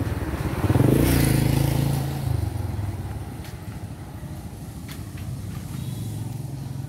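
Motorbike engine running close by, loudest about a second in, then dropping to a lower, steadier note.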